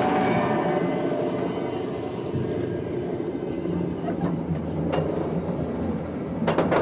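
Expedition Everest roller coaster train running along its track with a steady low rumble, and a burst of clattering near the end.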